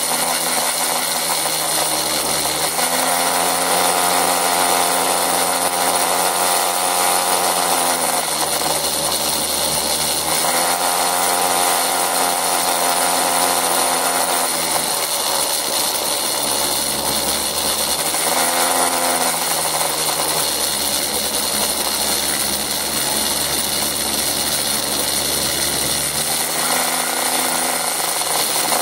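Motor scooter engine running under way, its pitch rising and falling several times as the ride goes on, with a steady high whine above it.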